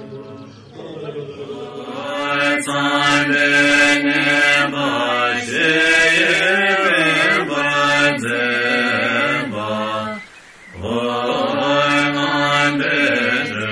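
Voices chanting a Buddhist prayer together in long, melodic phrases whose pitch rises and falls, with one short pause for breath about ten seconds in.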